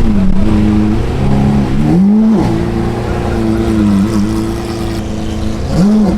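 A car engine revving: held at steady revs, with a quick rise and drop in pitch about two seconds in and another near the end.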